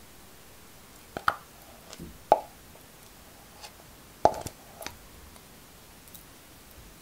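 Clear glass mixing bowl knocked as cream cheese is dropped into it with a spatula: three clusters of sharp knocks with a short ring, about a second in, just past two seconds, and the loudest at about four and a quarter seconds.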